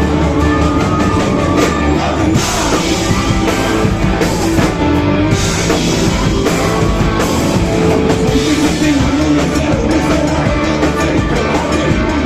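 Live rock band playing a song, with drum kit and guitar.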